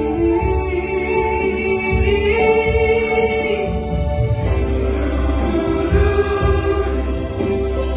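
Voices singing a Batak Christmas hymn in three-part harmony, holding long notes over a steady bass accompaniment, changing chord about two and a half and four and a half seconds in.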